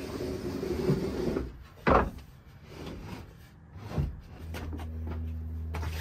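Wooden slat bed being slid out: pine slats rubbing and scraping over the timber frame, with a sharp wooden knock about two seconds in and another about four seconds in. A steady low hum starts near the end.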